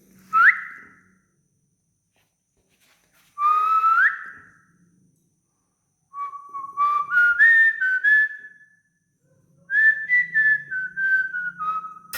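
A whistled tune: two quick rising swoops, then a melody of short stepped notes that climbs and then steps back down, in a clear pure tone. It is the anthem tune that the parakeet is being taught or sings.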